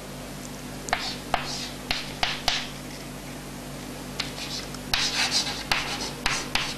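Chalk writing on a chalkboard: short scratchy strokes and taps, a few at first, then a quicker run of strokes from about four seconds in as the letters are formed.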